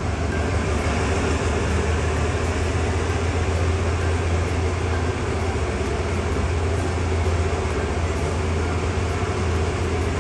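Passenger train running along the track: a steady low rumble with the even noise of the moving carriage.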